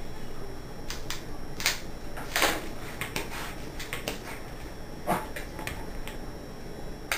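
Hand balloon pump being worked in short strokes, each stroke a brief puff of air, inflating a latex balloon. There are about eight puffs at uneven spacing, the strongest about two and a half seconds in.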